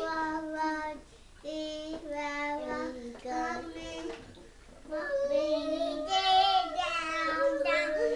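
A toddler singing a tune in held notes that step up and down in pitch, with short breaks about a second in and again around four seconds in.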